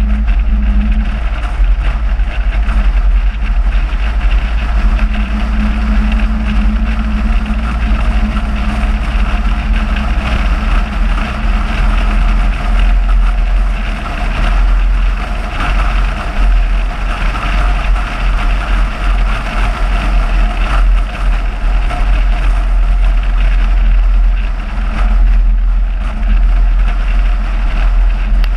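Car driving steadily along a winding road: continuous engine and road noise under a heavy, pulsing low rumble of wind on the microphone.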